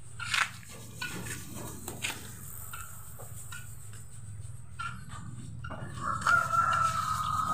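Chickens calling, with scattered short knocks and a long, drawn-out call near the end.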